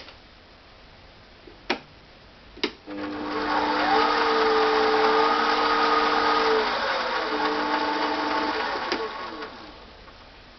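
Sieg C3 mini lathe running: after two sharp clicks, the motor and spindle start up about three seconds in and run with a steady whine for several seconds, then slow down and die away near the end.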